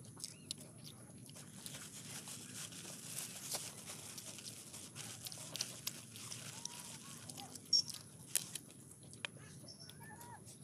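Hand-eating sounds: fingers tearing apart cooked chicken on a plate, with scattered small crunches and clicks. A few faint bird calls come in over the middle and near the end.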